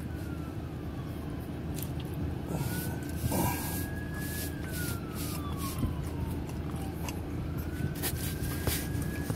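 An emergency vehicle's siren in a slow wail: a single tone rising for about two seconds and falling for about two and a half, going round twice. Under it runs a steady low rumble.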